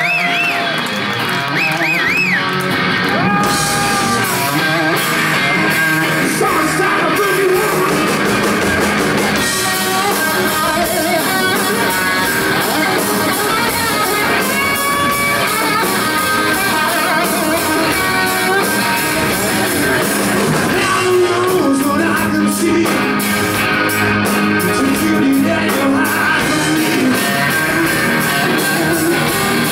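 A live rock band plays: electric guitar over drums, bass guitar and keyboard, with the guitar bending notes near the start.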